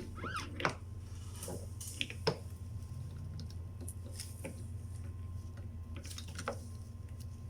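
Scattered light clicks and knocks of steering-rack parts being handled and worked into the rack housing, a few seconds apart, over a steady low hum, with a short squeak near the start.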